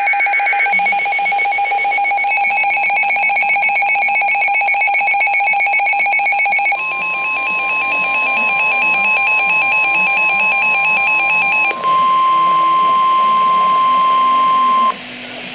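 Emergency Alert System alert tones. A rapidly pulsing, warbling electronic alarm sounds for about the first seven seconds. The steady single-pitch weather-radio alert tone then comes in, sounds alone for the last few seconds, and cuts off shortly before the end.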